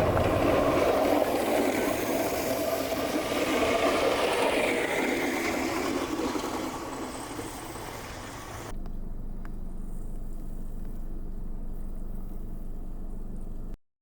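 Loud motor-driven rushing noise that swells and eases over several seconds. About nine seconds in it changes abruptly to a quieter steady low hum, which cuts off suddenly near the end.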